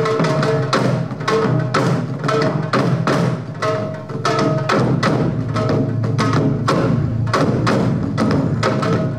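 Janggu, the Korean hourglass drum, played with a round-headed mallet on one head and a thin bamboo stick on the other: a quick, continuous run of sharp drum strikes, several a second.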